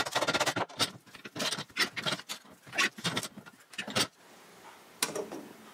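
Thin sheet metal being bent by hand over the jaws of a bench vise, flexing and knocking against the vise in a series of irregular short clanks and rattles. The clanks stop about four seconds in, with one more about a second later.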